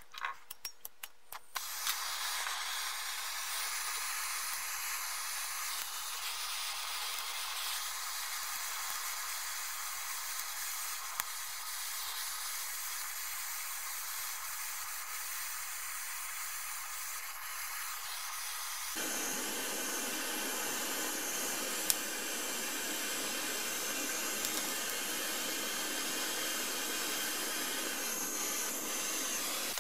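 Handheld gas torch flame hissing steadily as it heats a copper joint for soldering. A few clicks at the start, and about two-thirds of the way through the hiss becomes fuller and deeper.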